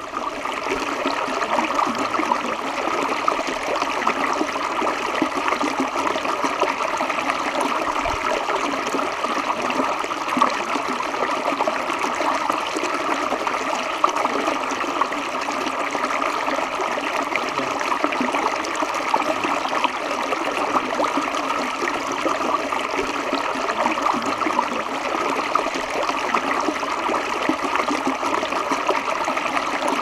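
Small rocky mountain stream rushing and splashing over and between boulders, heard close to the water's surface; a steady, even stream of water noise.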